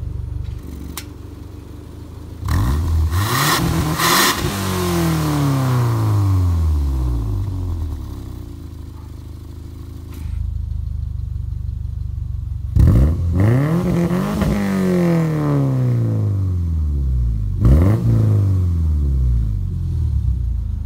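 Exhaust of a 2001 Subaru Forester's 2.5-litre flat-four, running through an Xforce Varex valved muffler: idling and revved in several quick blips, each sweeping up and easing slowly back down to idle. About halfway through, the idle steps up clearly louder as the muffler's valve is switched from closed to open mode, so the later revs are in open mode.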